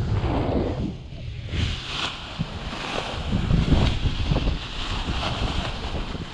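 Airflow rushing over the microphone of a paraglider pilot in a stall attempt on an Ozone Buzz Z6 wing. The rush drops off about a second in, then comes back with a brighter hiss and many short crackles, as the stalled canopy's fabric flutters.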